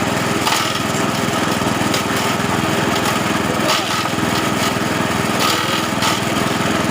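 Small brush-cutter engine running steadily at speed, driving a homemade grinding mill, with a few short crackles over the engine.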